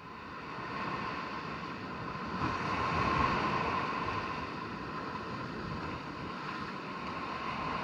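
Surf washing up a sandy beach, a steady hiss of small waves that fades in at the start.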